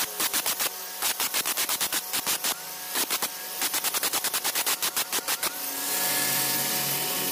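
Electric angle grinder with an abrasive disc smoothing the inside of a hard river-stone mortar, the disc chattering against the stone in rapid uneven pulses while the motor's pitch rises and dips under load. Near the end the grinder is lifted clear and runs free with a steady whine.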